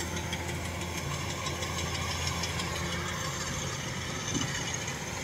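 Kubota combine harvester running steadily as it cuts and threshes rice, a constant engine hum.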